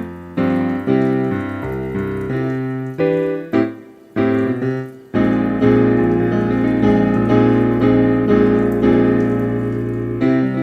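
Background piano music, a run of struck notes with a fuller sustained passage from about five seconds in.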